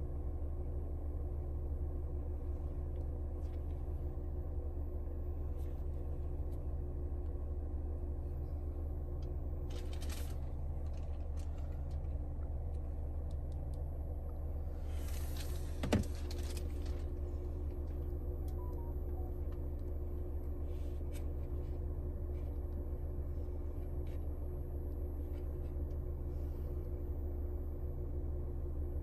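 Steady low hum inside a car cabin, the 2021 Mercedes GLC300 4MATIC standing with its engine or climate system running. A few faint clicks are heard, and a brief rustle with a sharp knock comes about halfway through.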